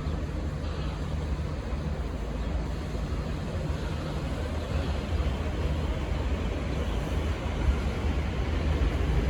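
Steady low diesel rumble of train engines at a station platform, growing slightly louder near the end.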